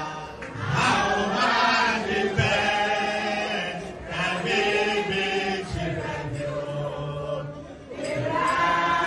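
A worship song sung by a man into a microphone with a group of voices singing along, in long held phrases broken by short pauses about four and eight seconds in.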